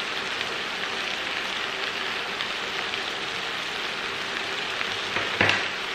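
Minced meat (keema) frying in a non-stick pan with a steady, even sizzle as its last moisture cooks off. A light click comes near the end.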